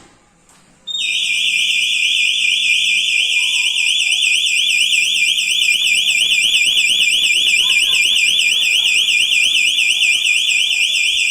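Electronic security alarm siren going off about a second in, a loud warbling tone that sweeps rapidly up and down about five times a second. The armed alarm system has been triggered.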